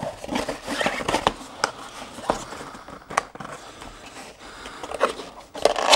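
Cardboard box and packaging being handled and rummaged through: rustling with scattered sharp clicks and taps.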